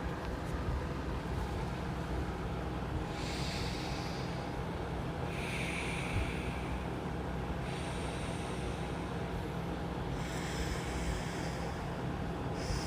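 Anulom vilom (alternate-nostril) pranayama breathing: slow, hissing breaths drawn in and let out through the nose, about five in all, each lasting a second or two, over a steady low hum.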